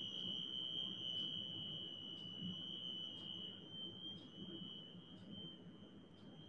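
A steady high-pitched whine, with faint ticks about once a second, over low room noise.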